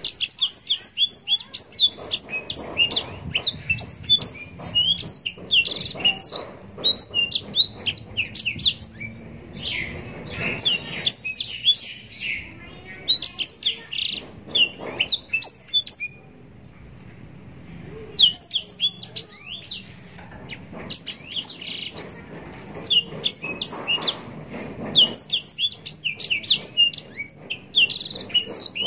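Blackthroat (black-throated canary) singing long, rapid twittering phrases of quick, high, falling notes. The song breaks off for about two seconds past the middle, then starts again.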